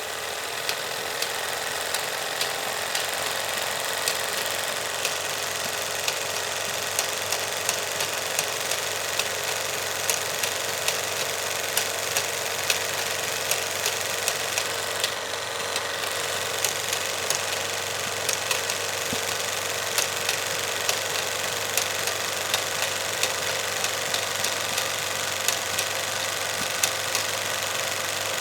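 16mm film projector running: a steady mechanical whirr and chatter with sharp, uneven clicks every half second to a second.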